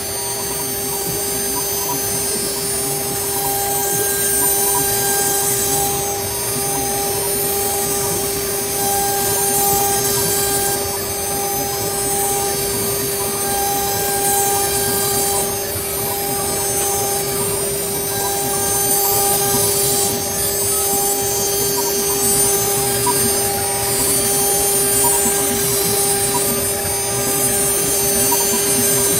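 STYLECNC STM1325-R1 CNC router spindle running at a steady high whine while its bit cuts circular grooves into EVA foam. A hissing cutting noise under the whine swells and eases every few seconds as the tool travels.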